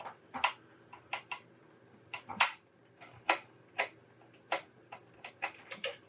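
Phillips screwdriver undoing a screw in a desktop computer's metal case: about a dozen short, sharp clicks at irregular intervals, a second or less apart.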